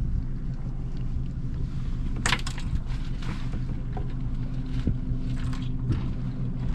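Boat's motor running at a steady low hum, with wind on the microphone and a few knocks and clatters of gear on deck, the loudest about two seconds in.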